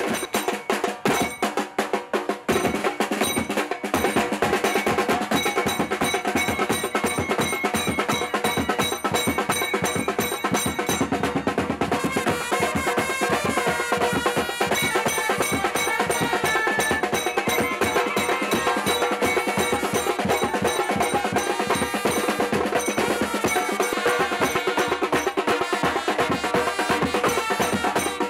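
Street wedding band drums, snare and bass drum, beating a fast, dense rhythm, with a steady melody line over the top.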